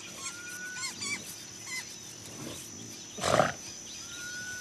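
African buffalo herd, with one buffalo giving a single short grunt about three seconds in. Small birds whistle and chirp several times, over a steady high insect buzz.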